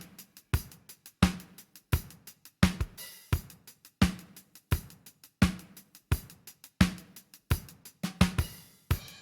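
Drum kit loop playing a steady beat: strong hits about every two-thirds of a second, with quick hi-hat ticks between them.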